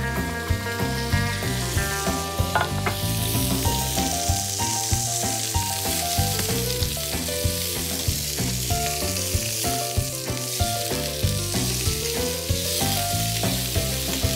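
Tuna steaks searing in a little oil in a hot frying pan, sizzling steadily. Background music with a steady beat plays over the sizzle.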